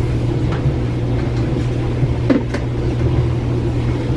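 Steady low machine hum, with a couple of light knocks a little past two seconds in.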